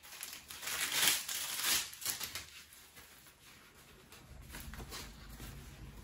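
Packaging rustling as it is handled during unboxing, in a few bursts that are loudest about one and two seconds in, then fading to quieter handling noise.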